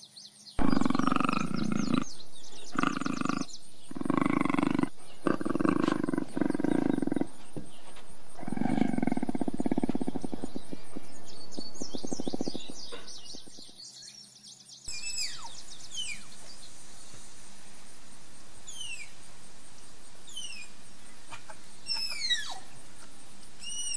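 Cougar (puma) vocalizing: a series of low calls, each about a second long with short breaks between them, fading out a little past halfway. Then a steady outdoor background with a bird's quick, high, falling chirps.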